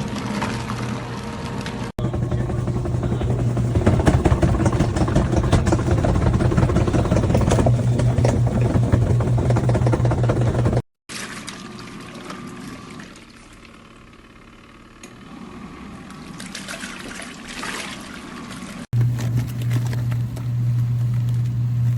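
Portable mini washing machine running: a steady motor hum with water churning in the tub, over several short clips, with a quieter stretch of lighter water sound in the middle.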